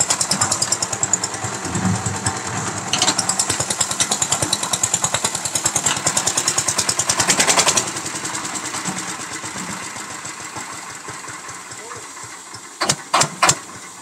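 One-bag concrete mixer running, driven by a single-cylinder stationary diesel engine with a rapid, even beat while the drum turns on its open ring gear and pinion. The running is loud for about the first eight seconds, then fades gradually, and three sharp knocks come near the end.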